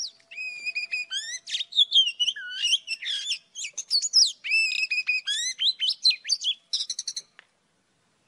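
Oriental magpie-robin singing a fast, varied run of clear whistled notes, rising and falling slides and short trills, stopping about seven seconds in.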